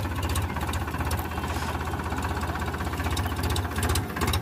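Powertrac Euro 50 tractor's three-cylinder diesel engine running steadily with a fast, even knock.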